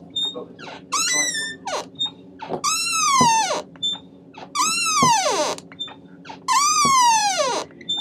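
Experimental duet for Moog synthesizer and door hinge: four glides, each about a second long, each starting high and falling in pitch, over a steady low hum.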